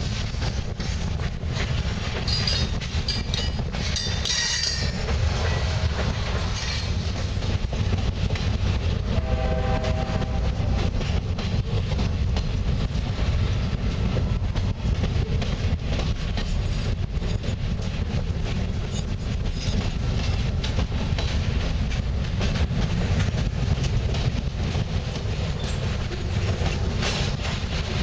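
Freight cars, including gondolas and covered hoppers, rolling past close by. There is a steady low rumble, and the wheels click over the rail joints.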